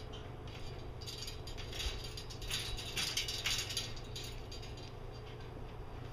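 Metal enclosure poles and connectors rattling and clinking as they are handled and fitted together. A cluster of rattles about a second in grows loudest around the middle, with one dull knock near two seconds.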